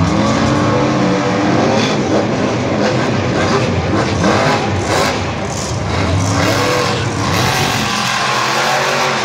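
Two monster trucks' supercharged V8 engines revving hard as they race side by side. The pitch climbs and falls with each burst of throttle.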